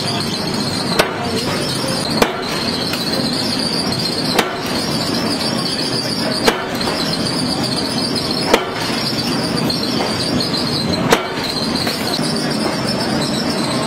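Forging press striking red-hot steel scissor blanks, one sharp impact every two seconds or so, six in all, over a steady machinery din with a high whine.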